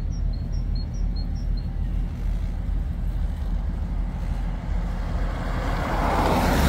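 Road traffic: a steady low engine rumble from vehicles standing at the bridge, then a car passing close by near the end, its noise swelling up.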